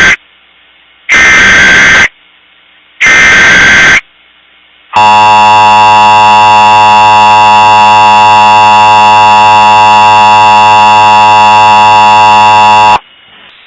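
Loud Emergency Alert System tones: the end of one SAME header data burst, then two more, each about a second long and a second apart. About five seconds in, the steady two-tone attention signal comes on, holds for about eight seconds and cuts off sharply.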